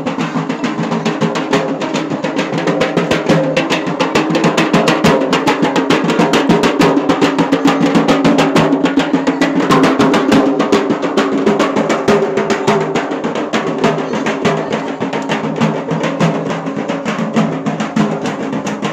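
Procession drums playing fast and loud for kavadi dancing, with a steady droning tone held beneath the strokes.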